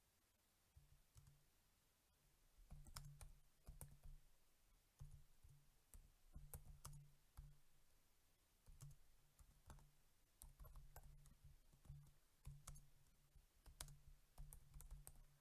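Faint typing on a computer keyboard: irregular key clicks, a few a second.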